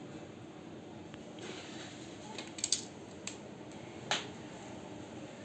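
A few sharp plastic clicks and a short rustle, the sound of laptop parts being handled and snapped into place during a repair.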